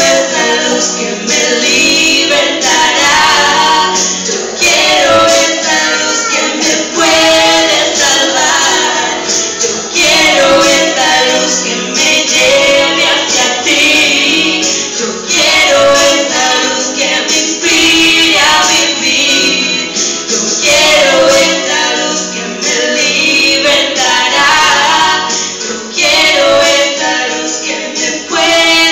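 Two women singing a Christian song together into microphones.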